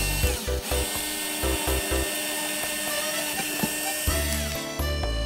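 Small hand-held electric drill with a fine bit boring a hole through a PVC pipe tee, a steady high whine that stops shortly before the end, over background music.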